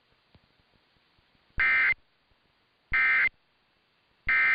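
Emergency Alert System end-of-message (EOM) signal: three short, identical bursts of two-tone digital data, each about a third of a second long and about a second apart, marking the end of the alert.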